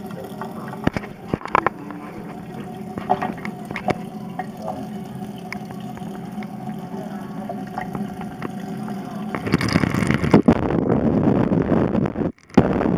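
Water running from a kitchen tap into a stainless steel sink, close to the camera, with scattered sharp clicks of handling. About nine and a half seconds in it gives way to a much louder rushing noise, which cuts out for a moment near the end.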